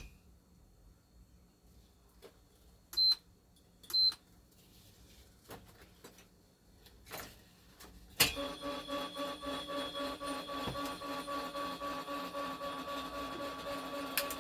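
Two short electronic beeps a second apart from a treadmill's control console. Then, about halfway through, the salvaged treadmill motor clicks on and runs steadily with an even pulse, driving the rollers of a homemade single-core wire stripper, and cuts off just before the end.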